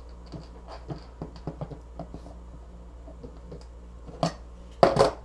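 Light clicks and taps of hands handling wires and heat-shrink tubing, with a louder knock about four seconds in and a sharper clatter near the end, over a steady low electrical hum.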